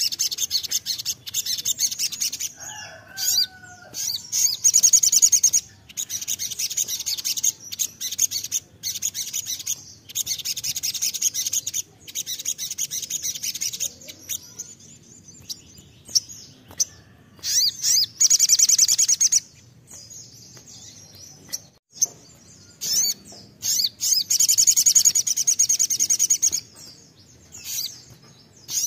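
Male olive-backed sunbird (sogon) singing in rapid, high-pitched trilled phrases, several bursts of a few seconds each with short pauses between them.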